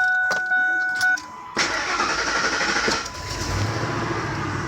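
Ford Expedition starting: a steady electronic warning tone and a few clicks, then the engine cranks and catches about a second and a half in and runs on steadily.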